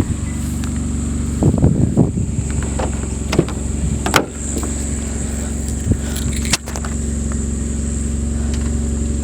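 Kia Forte car engine idling steadily after being remote-started, with a few sharp clicks and knocks over it.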